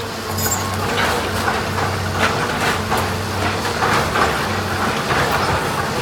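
House demolition: a heavy machine's engine hums steadily while timber and debris crack, crunch and knock in a string of irregular impacts.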